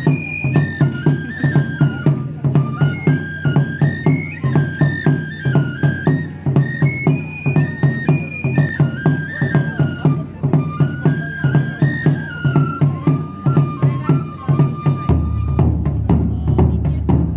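Wadaiko (Japanese taiko drums) and a shinobue bamboo flute playing a festival piece: the flute carries a stepping melody over a steady drumbeat. Near the end the flute settles on one long held note and stops, and the drums swell into a dense, heavier roll.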